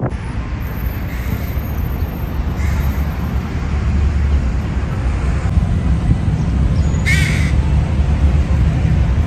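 A hooded crow caws once, about seven seconds in, over a steady low rumble.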